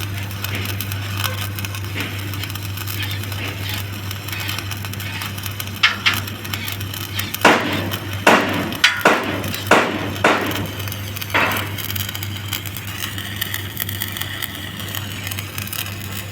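Steady low hum from the stick-welding setup, with a quick run of about eight sharp metallic knocks and clinks in the middle, from about six to eleven seconds in.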